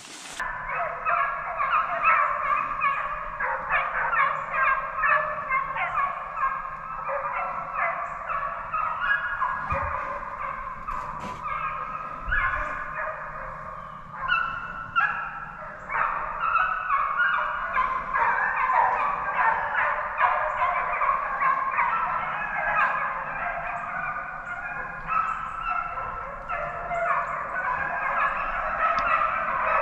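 A pack of deer hounds baying in chorus, many voices overlapping without a break: the dogs giving mouth as they run a deer during the drive.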